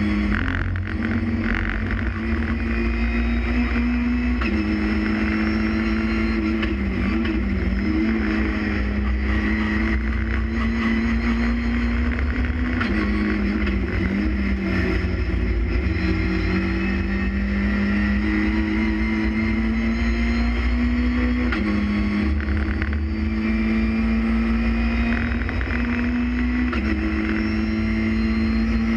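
Renault Clio Cup race car engine heard from inside the stripped cockpit, pulling hard on a flying lap. Its note climbs steadily and then jumps abruptly a few times as it changes gear, over a constant low rumble of road and tyre noise.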